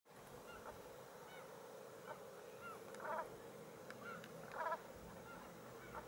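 Birds calling: a scatter of short calls, with two louder, longer calls about three and four and a half seconds in.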